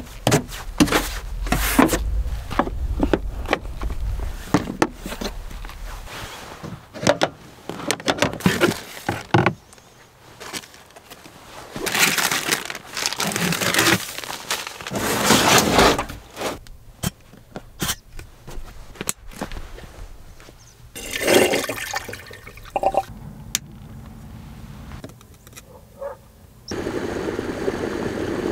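Camp gear being handled in the back of an SUV: repeated knocks, clunks and clicks, with bursts of plastic rustling as a bag of ground coffee is picked up. Near the end a steady hiss starts as the collapsible kettle comes to the boil and steams.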